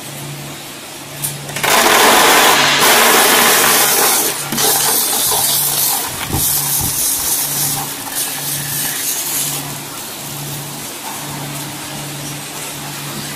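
Industrial peanut frying line machinery running, with a low hum that pulses about once a second. A loud rushing noise sets in about two seconds in, eases after about four and a half seconds and fades out by about ten seconds.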